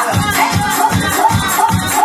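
Up-tempo Romani dance music over loudspeakers, a woman singing over a fast, steady beat of about four to five strokes a second, with hands clapping along.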